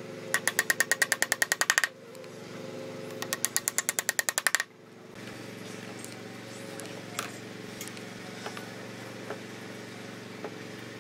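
Two quick runs of hammer blows driving a nail into pine board, about ten strikes a second, the second run stopping abruptly a little over four seconds in. After that there is a steady background of level tones with a few small sharp clicks from a pneumatic brad nailer firing.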